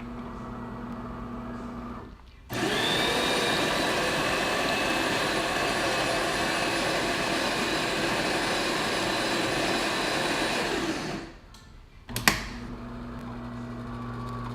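Built-in burr grinder of a DeLonghi Magnifica espresso machine grinding coffee beans for about eight seconds. It starts with a rising whine and then runs evenly. Before it and after it there is a lower steady machine hum, and a sharp click comes a second after the grinder stops.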